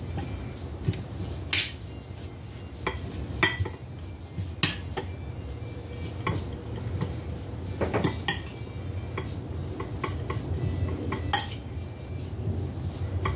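A metal spoon stirring a thick grated-carrot and coconut mixture in a ceramic bowl, scraping and clinking irregularly against the bowl, with a few sharper ringing clinks.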